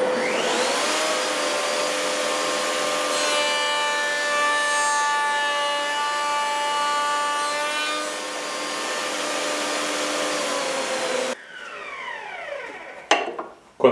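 Table-mounted router spinning up with a rising whine in the first second, then an Encore 9346 adjustable rail-and-stile cutter cutting a tenon profile in a wooden rail fed past it, the cut adding a higher whine from about three to eight seconds in. The router switches off near the end and coasts down with a falling whine.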